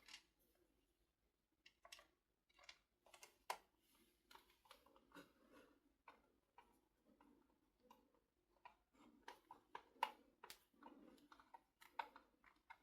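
Faint, irregular small clicks and ticks of a screw being driven into the plastic battery pack of a Dyson V7 handheld vacuum, with light handling rustle.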